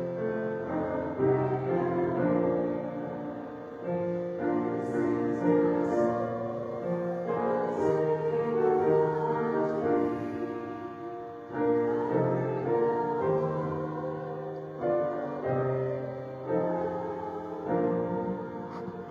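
Slow church music on a keyboard instrument: sustained chords changing every second or two, growing quieter toward the end.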